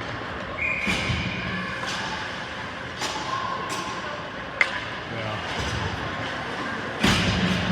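Ice hockey game in an arena: sharp knocks and thuds of sticks and puck against the boards over shouting voices, with the loudest bang about seven seconds in.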